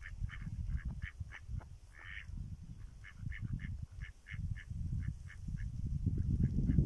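Mallards calling in a quick run of short, clipped notes, a few a second. Wind buffets the microphone underneath, swelling toward the end.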